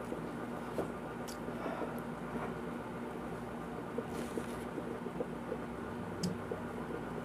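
Close-up chewing and mouth sounds of someone eating: soft wet clicks and smacks, with a couple of sharper clicks, over a steady low hum.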